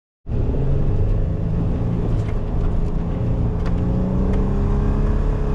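Vehicle engine running hard under load while ploughing through deep snow, its note rising slowly. It cuts in suddenly about a quarter second in.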